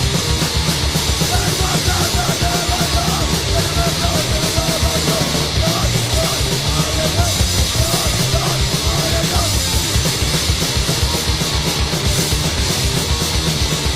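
A 1985 Swedish hardcore punk recording playing: fast, loud, distorted band music with pounding drums.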